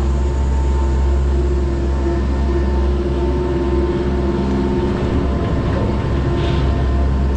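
Stand-up gondola-style bike lift running as it carries the cabin uphill, heard from inside the cabin: a loud, steady mechanical hum with a constant low drone and a few steady higher tones.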